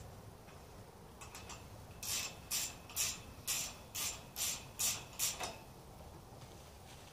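Ratchet wrench tightening a nut on a steel tube clamp of the greenhouse frame: a few faint clicks, then eight quick ratcheting strokes about two a second, which stop a little past halfway.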